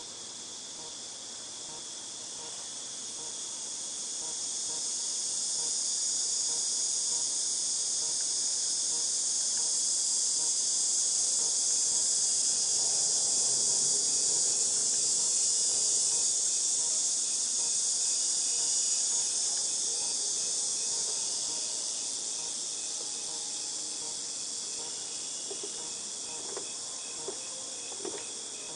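Cicadas in chorus: a high, shrill buzzing that slowly swells to a peak near the middle and then fades, over a steady fainter whine lower down.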